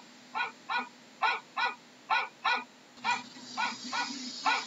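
A dog barking over and over in short barks, mostly in pairs, about two barks a second.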